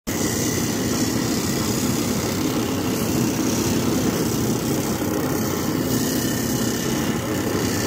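Electric drum sander running steadily while a pine wood edge is pressed against it: a constant motor hum with the hiss of abrasive on wood.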